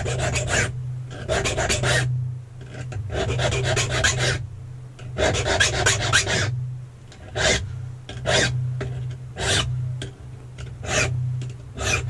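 An impressioning file rasping across the cuts of a key, taking them down a fraction because the key sits slightly high in the newly pinned lock. The strokes come in long runs at first, then single strokes about a second apart, over a steady low hum.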